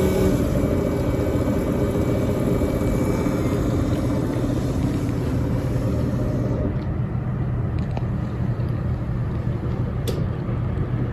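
Keurig single-serve coffee maker running, its pump humming as it dispenses hot water. The hiss of the flow fades about six and a half seconds in, leaving a low hum, and there is a single click near the end.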